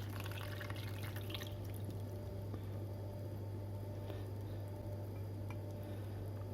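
Warm milk being strained through a sieve: a faint trickle of pouring for the first second and a half, then a few scattered drips. A steady low hum runs underneath.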